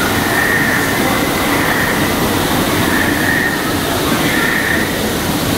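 Steady rushing noise, with a faint high chirp that repeats about every second and a half.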